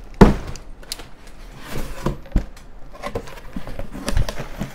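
A cardboard shipping box being opened by hand: flaps bending and knocking against the box, with rustling of packing paper. A few sharp knocks, the loudest just after the start.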